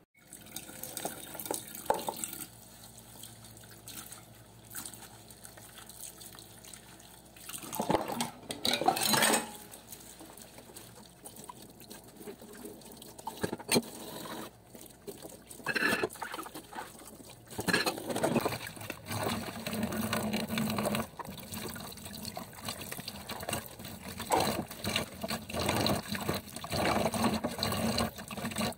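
Kitchen tap running into the sink while a plate is washed by hand under the stream: water splashing off the plate and hands, louder in several surges, with a few short knocks.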